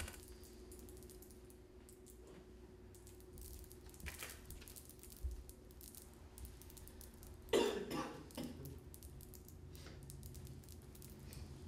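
A person coughs twice, about two-thirds of the way in, over a quiet room with a steady low hum and a few faint small clicks.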